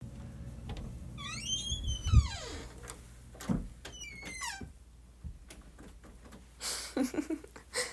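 Door creaking on its hinges: two long falling squeaks with a low thump between them, then a few short rustling sounds near the end.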